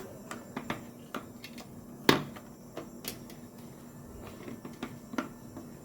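Scattered light clicks and knocks of small hard objects being handled, with one sharper knock about two seconds in, over a faint steady hum.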